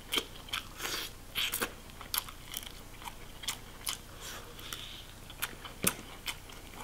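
Close-miked chewing and eating: soft wet mouth clicks and lip smacks at irregular intervals, a few each second.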